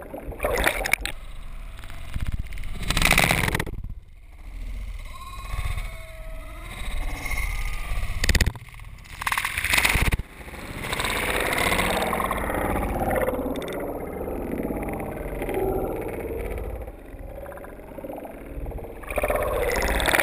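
Muffled underwater gurgling and sloshing heard through a submerged GoPro, with a few dull knocks.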